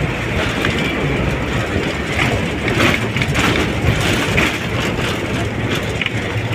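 Train carriage in motion across a bridge, heard from inside: a steady rumble of wheels on rails with irregular clattering.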